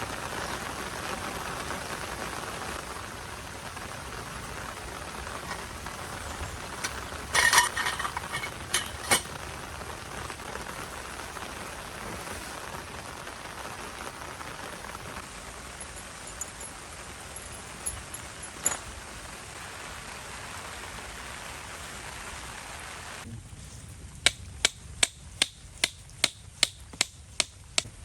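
Steady rain falling, with a few clinking knocks about a third of the way in. Near the end the rain drops away and a run of about ten sharp, evenly spaced knocks follows, about two and a half a second.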